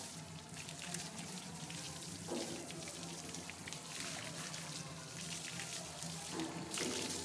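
Water spraying and splattering steadily on a bull's wet hide and the stone floor as the bull is bathed.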